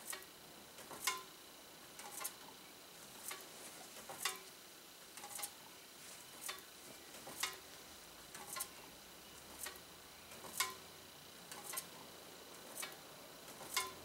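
Slowly turning box fan's blades grazing a foil-covered paper tag, a short ticking scrape about once a second, some of them doubled. Each graze is the contact of a homemade electromechanical flasher, briefly closing the circuit to an incandescent bulb.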